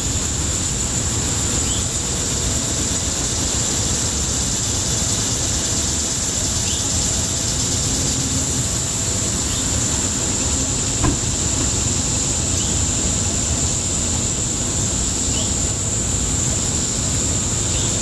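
Steady high-pitched insect drone over a low, even rumble of background noise, with faint short chirps every few seconds and one sharp knock about eleven seconds in.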